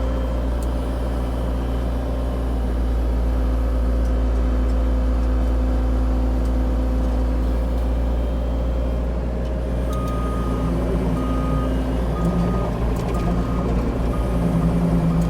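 CAT 304 E2 mini excavator's diesel engine running steadily, and about ten seconds in its travel alarm starts beeping, about one beep a second, as the machine moves.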